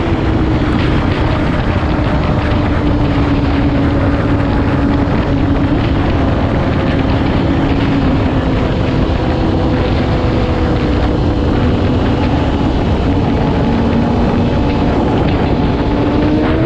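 2008 Yamaha R6's inline-four engine running under steady throttle, its pitch easing down slightly in the first few seconds and rising a little near the end, with heavy wind rush on the microphone.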